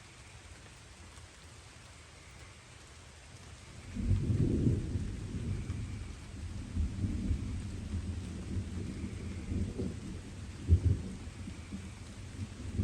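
Light rain falling, then distant thunder rumbling in low about four seconds in and rolling on in swells, with a louder peak near the end.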